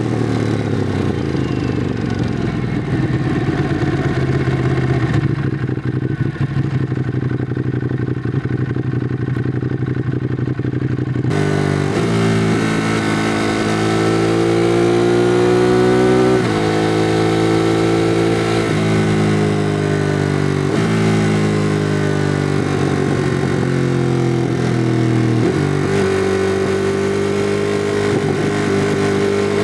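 2016 Ducati Monster 821's twin-cylinder engine through its stock exhaust. It runs steadily at low revs, then a third of the way in the throttle opens and the bike accelerates hard, the pitch climbing and then dropping at each of four upshifts.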